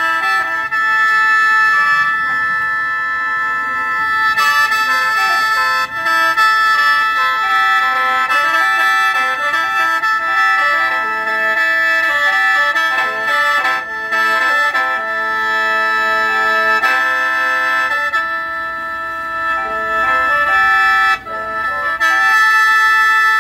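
Khaen, a bamboo free-reed mouth organ of Thailand and Laos, played solo: a reedy melody of changing notes over steady held drone notes, with a few brief dips.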